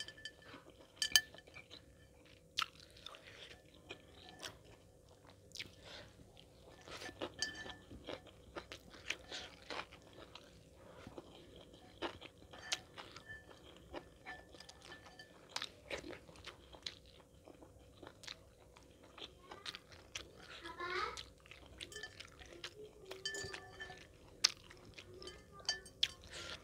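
Close-up eating sounds from a meal of fried chicken and long-bean sambal: irregular chewing, with crunching bites and wet mouth clicks.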